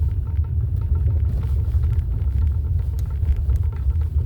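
A steady low rumble with faint, scattered light ticks above it.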